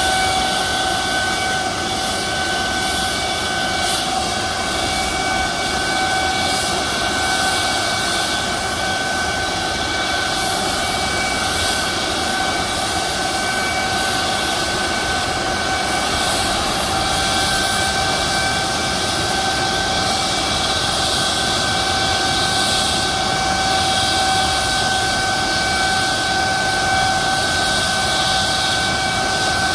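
McDonnell Douglas MD-900 Explorer helicopter running on the ground. Its twin Pratt & Whitney PW207E turboshaft engines give a steady high whine over an even rush of noise.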